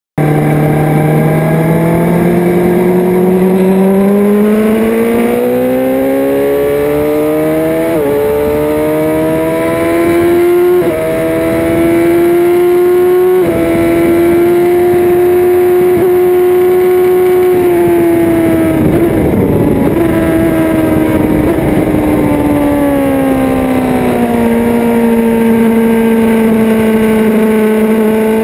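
Suzuki GSX-R600 inline-four engine, heard onboard under hard acceleration: it revs up through the gears, with sudden pitch drops at upshifts about 8, 11 and 13½ seconds in, then holds high revs. After about 18 seconds the engine note falls steadily as the bike slows for a corner, then settles to a lower steady note.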